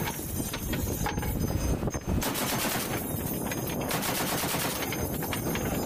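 M2 .50-calibre heavy machine gun firing short bursts of rapid shots, one about two seconds in and another about four seconds in, over a constant low rumble.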